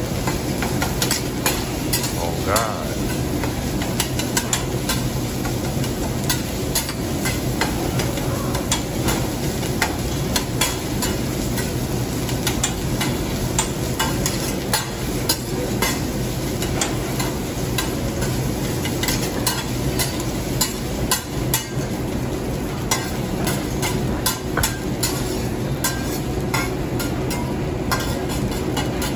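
Metal spatula and fork scraping, chopping and turning fried rice on a hot steel teppanyaki griddle. The rice sizzles under frequent light clicks of metal on the steel plate, over a steady low hum.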